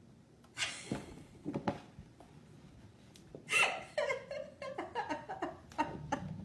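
Paper gift bag rustling and crinkling as a cat pushes its head into it, then from about halfway a person laughing quietly in short breathy bursts.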